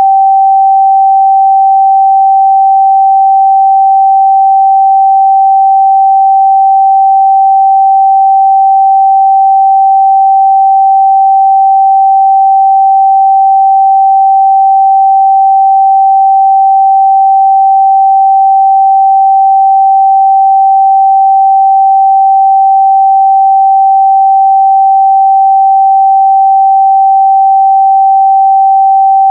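A steady, loud 777 Hz sine-wave test tone, one pure pitch held without change.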